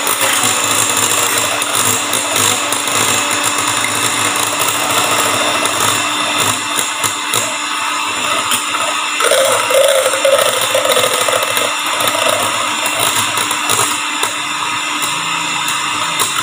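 Electric hand mixer running steadily at speed, its wire beaters whipping egg whites in a stainless steel bowl.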